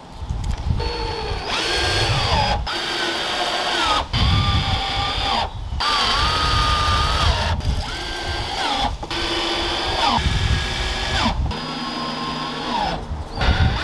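Cordless drill driving screws through a front lip into the car's plastic bumper: a series of short runs of motor whine with brief pauses between them, each slowing and dropping in pitch at its end.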